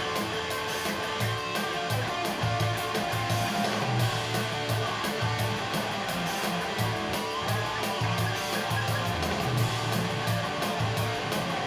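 Rock music: electric guitar over bass and drums with a steady beat.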